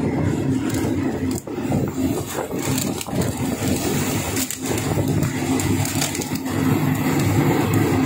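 Passenger train running along the rails: a steady low rumble with a few knocks about a second and a half apart, as the wheels go over the rail joints.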